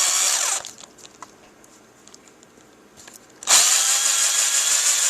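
Cordless drill spinning a diamond hole saw into an oiled brass rifle cartridge case, a steady high grinding whine. It stops about half a second in, leaving a few faint clicks, and starts up again about three and a half seconds in.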